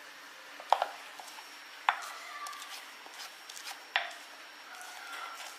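Kitchenware being handled: three sharp clinks, each with a brief ring, among lighter ticks and taps.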